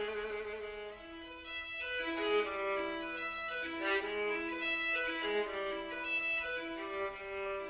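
Instrumental music: a slow melody of held notes over a sustained lower note.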